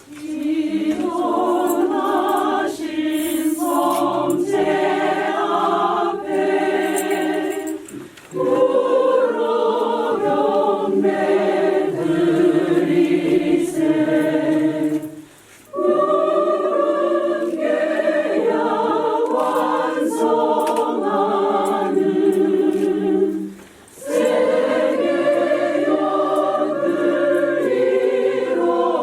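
A church choir singing a hymn in phrases of about eight seconds, with a short breath pause between each phrase.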